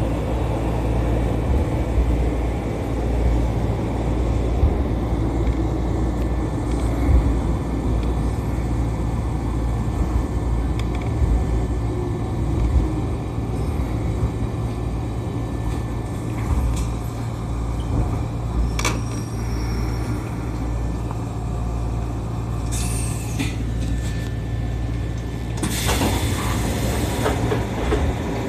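Keisei commuter train slowing into a station, heard from the driver's cab: a steady rumble with a faint falling whine as it slows, a few clicks, then two hisses of air near the end as it comes to a stop.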